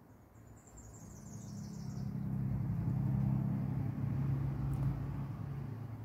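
A passing vehicle's low hum swells over a few seconds and fades again. Near the start a bird gives a brief run of high chirps.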